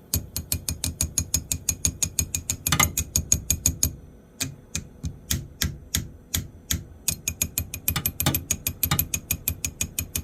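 Rapid tapping on a diesel heater's fuel pump, sharp clicks about six a second in runs with a couple of short breaks: an attempt to knock a stuck fuel pump back into working, which doesn't start it.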